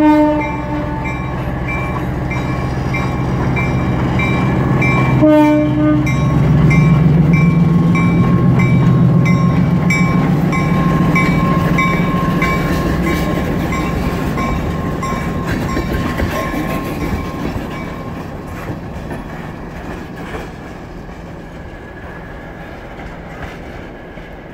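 EMD SW9 switcher locomotive with a 12-cylinder 567B diesel engine passing close by and pulling away, its engine loudest about eight seconds in and then fading. A horn blast ends just at the start and a second short blast sounds about five seconds in, while a bell rings steadily about twice a second through the first half.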